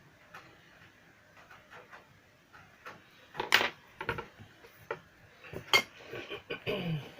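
Small metal tools and parts being picked up and set down on a workbench: an irregular string of clicks and clinks, with the sharpest knocks about halfway through and again near the end. A short sound falling in pitch comes just before the end.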